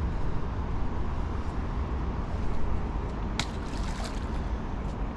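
Water sloshing and trickling at the canal's edge over a steady low rumble, with one sharp click about three and a half seconds in.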